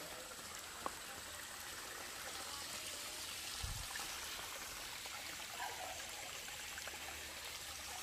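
Water flowing in a stream: a steady rushing wash with no let-up.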